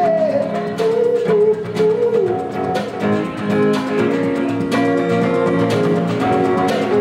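Acoustic guitar strummed steadily in an instrumental passage, with a man's held sung note trailing off in the first two seconds.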